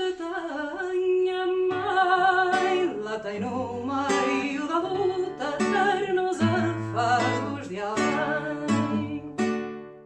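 A song sung to an acoustic guitar, fading out near the end.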